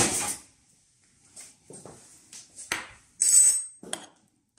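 Kitchen utensils handled on a table: a few light taps and clicks, then a metal spoon set down with a short ringing clink about three seconds in, and one more tap after it.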